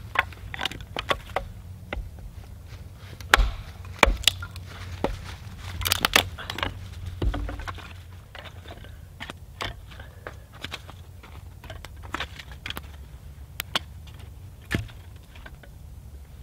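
Hatchet splitting small oak pieces into kindling: a series of sharp chops and cracks with split sticks knocking together. In the second half, lighter wooden clicks and knocks as split sticks are handled and stacked.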